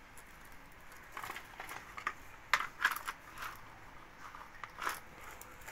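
Plastic toy car pushed by hand over grit and small stones on concrete: scattered small crunches and clicks at irregular intervals as its wheels and body scrape through the gravel.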